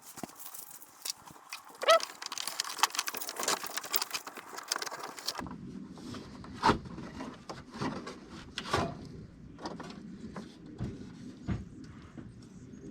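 Wiring harness cables and plastic connectors being handled and pushed through holes in a car's plastic bumper: scattered clicks, taps and rustling, with a brief squeak about two seconds in. A low steady hum comes in about halfway through.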